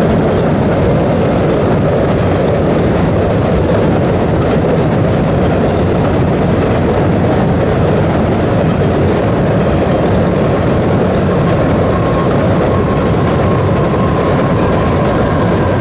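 Double-stack container cars of a freight train rolling across a steel trestle bridge: a steady, unbroken noise of wheels on rail.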